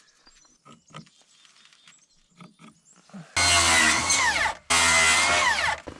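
A power drill run in two bursts of about a second each, with a short pause between, its pitch falling off as each burst ends. Light knocks and taps before it.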